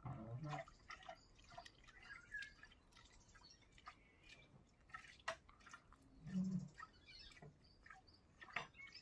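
Faint water dripping and trickling with scattered light clicks, from laundry water being handled and strained in a stone washing trough; a short low sound about six seconds in.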